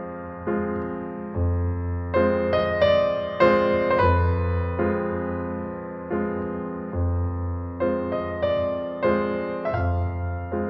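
Slow keyboard music: piano-like notes struck one after another, each starting sharply and fading, over a low bass note renewed every few seconds.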